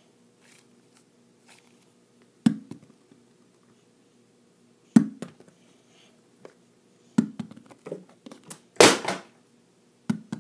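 Ball of Wonder Dough, a putty-like play dough, dropped onto a desk and landing with dull thuds about every two and a half seconds, with a few small bounces after the third drop. Near the end a louder, longer knock comes from a water bottle falling over.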